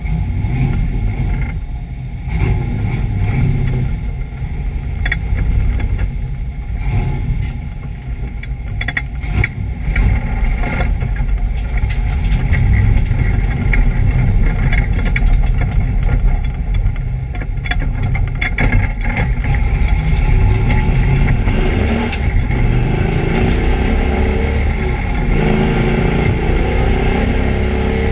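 Chevrolet Camaro's engine running hard on laps, revving up and down, with a misfire. Short sharp cracks are scattered through the engine note, and it revs up strongly near the end.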